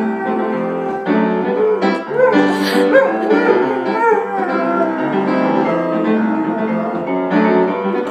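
Upright piano playing chords while a Gordon setter howls along, its wavering howls rising and falling in pitch over the music, most clearly in the middle of the stretch.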